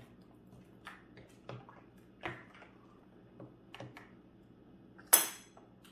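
Metal spoon tapping and clinking against a glass mixing bowl as a thick, creamy fruit salad is stirred: a few faint scattered clicks, then one sharp, louder clink about five seconds in.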